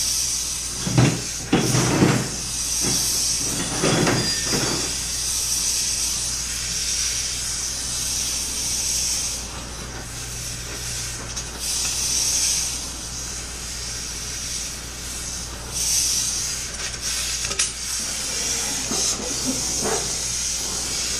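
Oxy-acetylene torch hissing steadily as it heats an aluminium plate clamped in a vise to soften it for bending. A few metal knocks sound in the first five seconds, with smaller ones near the end.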